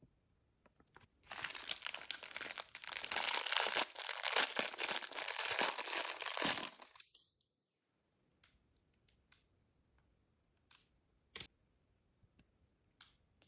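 Packaging being crinkled and handled for about six seconds, a dense rustling that then stops, followed by a few light clicks and taps.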